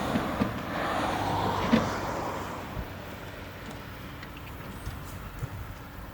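Vehicle noise that fades away after about two and a half seconds, with a sharp knock a little before two seconds in and a few light clicks afterwards.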